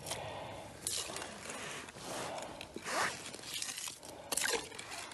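Irregular scraping and crunching of snow and ice in a handful of separate strokes.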